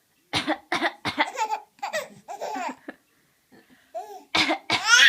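Someone coughing in short bursts, with a baby laughing in reply. Near the end a louder cough sets off a rising squeal of baby laughter.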